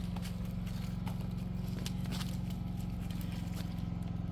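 Scattered clip-clop and clatter of goats' hooves over a steady low hum.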